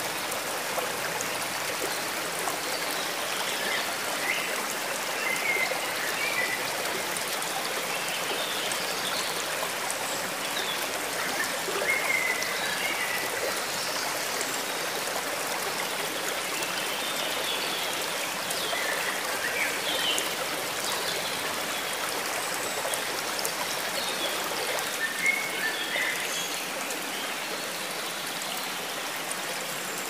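Running stream: a steady rush of water flowing over stones, with small gurgles and splashes here and there.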